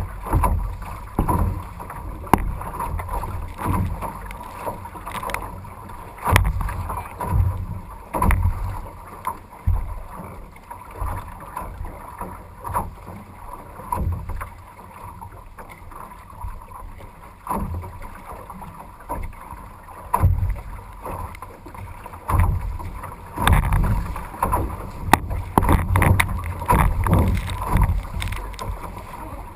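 Choppy waves slapping and splashing against a wooden canoe's hull while it is paddled through rough, windy water, with wind buffeting the camera microphone. Irregular low thumps and splashes come every second or so, growing busier near the end as spray comes over the bow.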